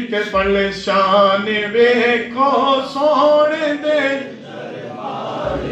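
A man chanting a devotional recitation into a microphone, his voice carried over loudspeakers, holding and bending long notes. The chanting eases off about four seconds in to a softer, steadier sound.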